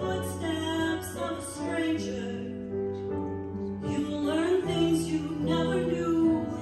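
Women's chorus singing, holding long notes that change pitch every second or so.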